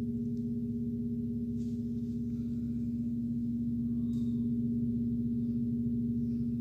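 A 1-metre Om gong ringing on with a steady, sustained deep hum, with no new strike.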